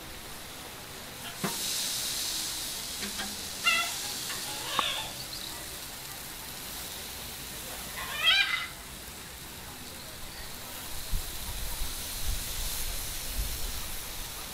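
Pork sizzling on the hot grate of a barrel grill, the hiss swelling as pieces are laid on, with a few sharp clicks of a metal fork against the grate. A short high call is heard about eight seconds in.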